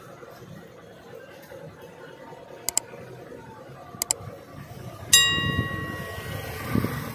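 Mouse-click sound effects, two quick double clicks about a second and a half apart, then a bright bell ding that rings out and fades over a second or two: the sound effects of a like-and-subscribe button animation. Low street hubbub underneath.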